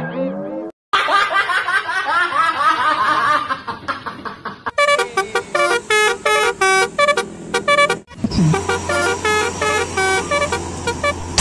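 Multi-tone bus 'telolet' horn of the Basuri type playing quick melodic phrases of short stepped notes, with a stretch of warbling, sliding tones in between. A steady low hum runs under the horn in the last few seconds.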